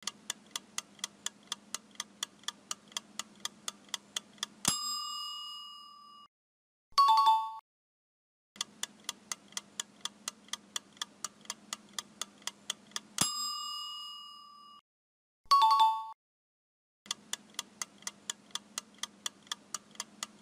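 Countdown-timer sound effects: fast, even clock ticking, about four ticks a second over a faint low hum, ended by a bell ding that rings out. After a short silence a quick two-note chime sounds, then the ticking starts again. The cycle comes round about twice.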